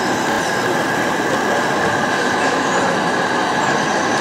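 Model trains running on layout track: a steady rolling noise of wheels on rails and small electric motors.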